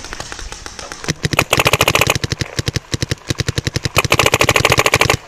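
Electronic paintball marker firing in rapid strings of shots, about a dozen a second, starting about a second in.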